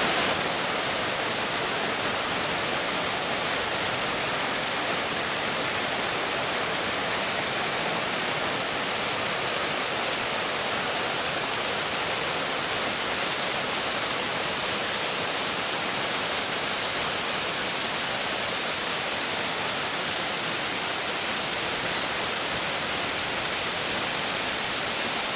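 Twin waterfall running steadily: a continuous hiss of falling and rushing water over rock.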